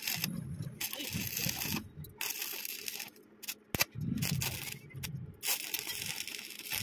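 Stick-welding arc crackling and hissing on thin steel tubing, in several short runs with brief gaps where the arc is broken and restruck.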